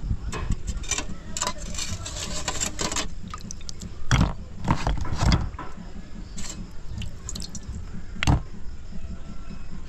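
Boiled spider conch shells lifted dripping from a pot of water and set into a plastic basket: water dripping and splashing, with hard shells clicking and knocking against each other and the basket. The louder knocks come about 4, 5 and 8 seconds in.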